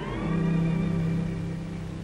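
Film score music: a brief sliding phrase gives way to a long held low note that slowly grows quieter.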